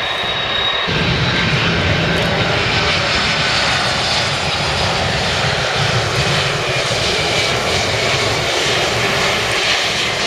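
Jet engine noise, a loud steady rush. From about a second in, the four engines of a Boeing 747-400 on final approach with its gear down pass low, adding a deep rumble under the roar.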